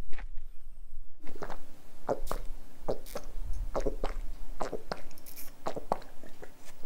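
Footsteps crunching on a dirt and rock hiking trail, paired scuffing steps about every three-quarters of a second.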